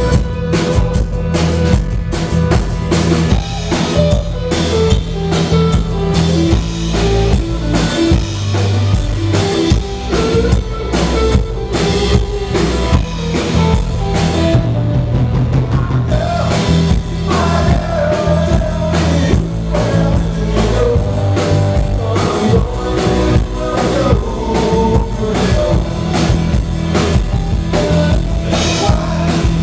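Small rock band playing live: a drum kit keeps a steady beat under guitars and bass.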